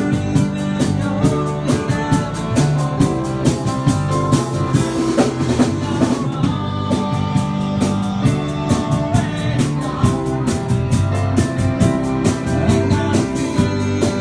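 Live rock band playing: a drum kit keeping a steady beat with cymbal strokes, over bass guitar, guitar and electric piano.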